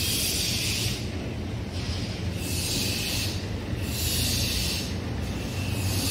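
Repeated bursts of hissing spray, four times, each about a second long, over a steady low machine hum.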